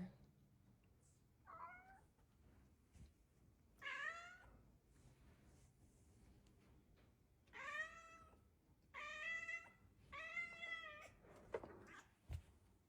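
Domestic cat giving a series of short meows, about six, a second or more apart, the excited calls of a cat watching birds through a window.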